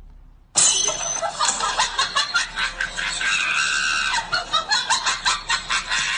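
A person's loud shrieking laughter, starting suddenly about half a second in and going on in quick pulses.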